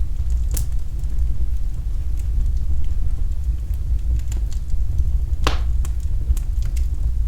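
Fire burning in a fireplace: a steady low rumble of the flames with scattered sharp crackles and pops, the loudest about five and a half seconds in.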